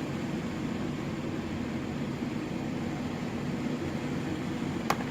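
Steady background hum and hiss, with a single sharp click near the end.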